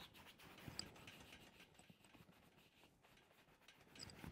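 Near silence with faint, irregular scratching of pastel being rubbed onto a canvas.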